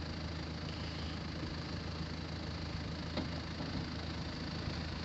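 4x4 SUV engine idling steadily while the vehicle sits stuck on rocks, with a faint clack of stone about three seconds in as rocks are packed under the rear wheel.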